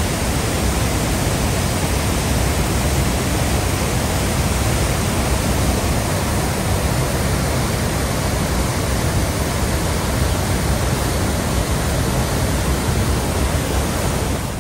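Floodwater pouring over a river waterfall, a loud, steady rushing that does not let up, swollen and churning from storm runoff.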